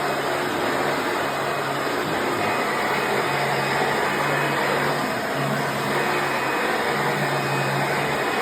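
Hoover Preferred soft-bag upright vacuum cleaner running with a steady motor and airflow noise, with a low hum that comes and goes in strength.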